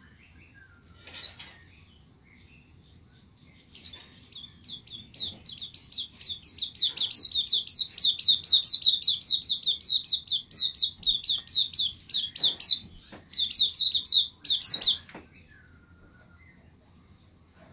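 White-eye (pleci) singing: a single high call about a second in, then from about four seconds in a fast run of high twittering notes, about five a second, lasting some eleven seconds with a short break near its end. This is the bird in full, active song (gacor).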